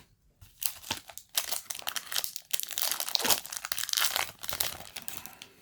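Foil wrapper of a Yu-Gi-Oh! booster pack crinkling and tearing in the hands, in a run of irregular crackles as it is handled and opened.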